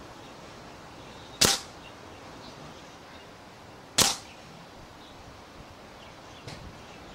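Air Arms S400 pre-charged pneumatic air rifle firing pellets: two sharp shots about two and a half seconds apart, then a much fainter click near the end.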